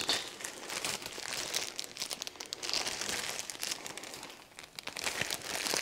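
Clear plastic foil wrapped around a potted plant crinkling and rustling as it is handled, with many small crackles and a brief lull near the end.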